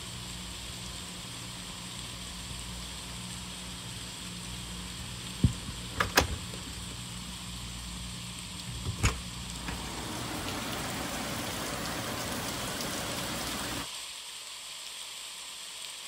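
Heavy rain pouring down steadily, a constant hiss of rain on the yard and roof. A few sharp knocks cut through it, one about five and a half seconds in, a pair around six seconds and another around nine seconds.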